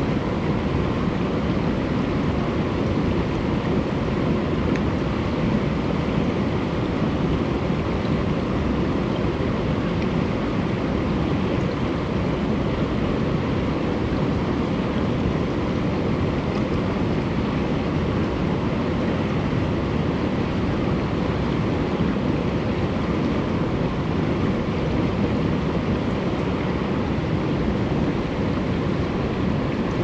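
Shallow mountain stream running fast over rocks and pebbles, heard close to the water surface: a steady, unbroken rushing and babbling of water.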